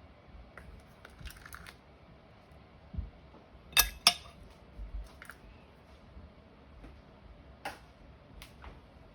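Kitchen handling noises: scattered light clicks and knocks, with two sharp clicks close together about four seconds in.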